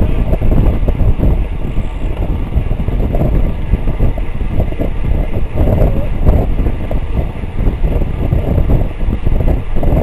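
Loud, unsteady wind noise on the microphone of a bike-mounted camera riding at about 26 mph.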